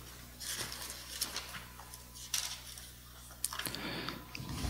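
Bible pages being turned by hand, with soft paper rustling and a few light clicks.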